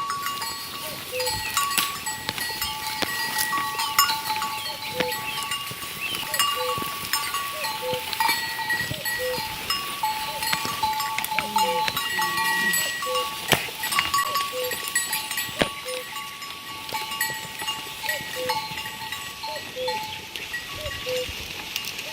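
A herd of goats with neck bells clanking and ringing as they move, with an occasional bleat.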